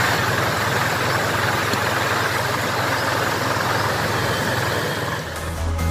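A JCB backhoe loader's diesel engine running steadily as it pushes through floodwater, under a continuous rushing noise. Music comes in near the end.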